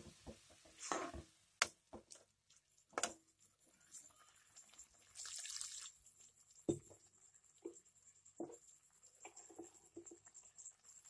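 Metal spoon stirring a wet tomato and onion mixture in a pan: scattered light knocks and scrapes against the pan with soft squelching. There is a brief scrape about five seconds in.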